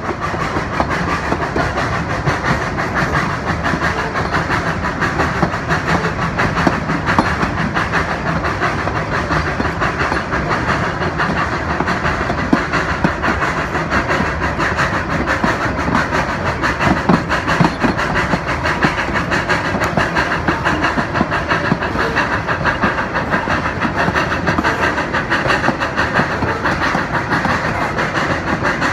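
Puffing Billy's 1901 NA class 2-6-2 narrow-gauge tank steam locomotive No. 6 running steadily, its exhaust chuffing over the clickety-clack of the carriage wheels on the rails, heard through an open window just behind the engine.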